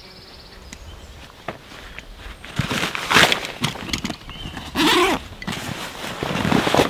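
Nylon backpack and its pack cover rustling and scraping as they are handled. The rustling comes in several loud bursts, starting about two and a half seconds in.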